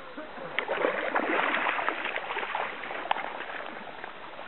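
Shallow stream water running and splashing, with many small irregular splashes.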